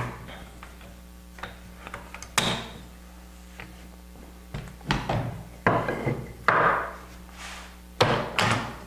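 Workshop handling noise: a string of separate knocks, clunks and short scrapes as a wooden workpiece and a metal dowelling jig and clamp are moved and set down, the loudest near the end.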